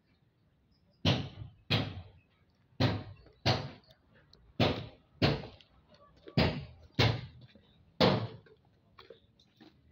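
Heavy, hollow knocks on the empty steel tank of an old railway oil tank wagon, nine in all, mostly in pairs, each dying away over about half a second.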